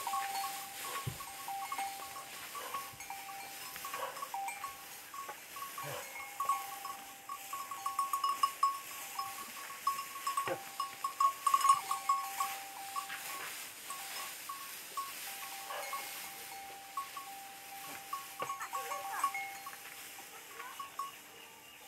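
Bells on bullocks ringing in a steady, rapidly repeating tinkle as the animals walk in circles over straw, treading out grain in traditional threshing, with occasional soft knocks.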